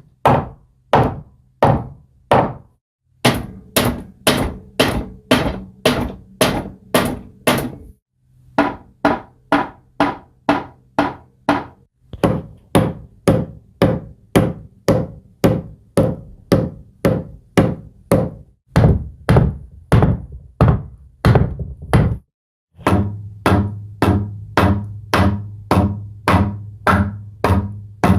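A hammer striking wood again and again, about two to three blows a second, in batches with short pauses between them, each batch on a different wooden surface with its own knock. Under some batches runs a low steady hum.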